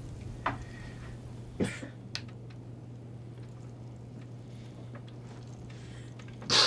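A man weeping quietly: a few faint sniffles and shaky breaths over a steady low hum, then a loud gasping sob near the end.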